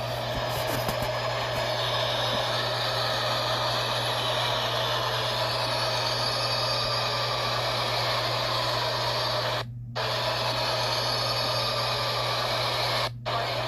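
Subway train running with steady propulsion noise and a constant low hum, laid on as a sound effect of '4000 series' propulsion. The higher part of the sound drops out abruptly twice, about ten seconds in and near the end.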